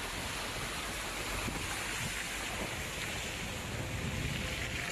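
Fast floodwater rushing and churning in a steady wash of noise, with gusts of wind buffeting the microphone.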